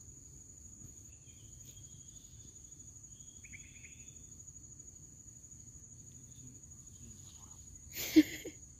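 Insects trilling on one steady high note, with a couple of faint short chirps early on. Near the end there is a brief, sudden loud rustle and knock.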